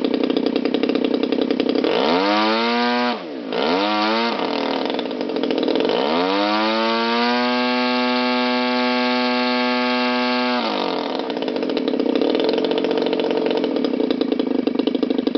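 DLE-30 30cc gasoline two-stroke engine spinning a Mejzlik 19x8 carbon propeller, run up and down by hand to warm it up and show its throttle response. It idles, is blipped up twice in quick succession about two to four seconds in, then climbs to a steady high speed held for about three seconds before dropping back to idle.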